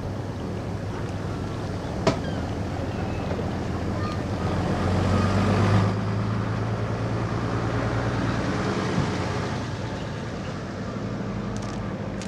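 An engine's low steady hum that swells for a couple of seconds and then drops away abruptly about six seconds in, over a haze of wind noise, with one sharp click about two seconds in.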